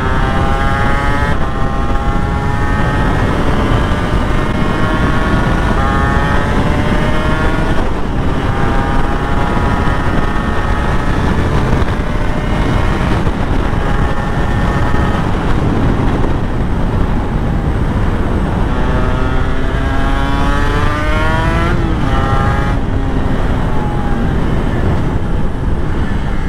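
Honda NSR250R MC21's two-stroke V-twin engine pulling hard through the gears, its pitch climbing and then dropping at each upshift, then easing off near the end. Heavy wind rush on the microphone runs under it.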